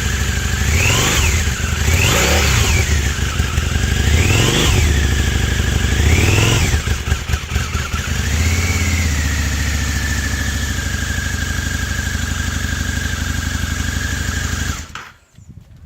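Harley-Davidson V-Rod's liquid-cooled V-twin on its completely standard exhaust, idling and blipped four times in quick rises and falls of revs, then a smaller blip, then settling back to a steady idle. The sound stops abruptly about a second before the end.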